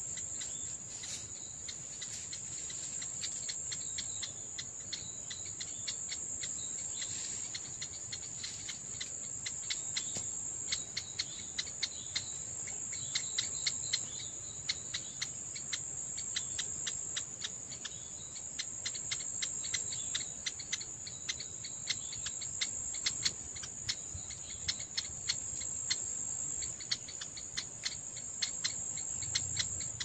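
Steady high-pitched insect drone, with many short ticks over it that become more frequent from about ten seconds in.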